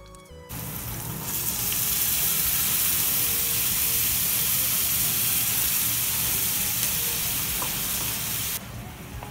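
Tomato puree hitting a hot oiled pan of frying green capsicum and sizzling loudly with a steady hiss as it is stirred. The sizzle starts about half a second in, grows fuller a second later, and drops off sharply near the end.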